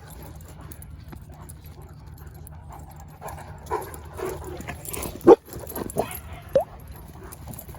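Dog yips and whines in a run of short calls starting about three seconds in, the loudest a sharp call about five seconds in.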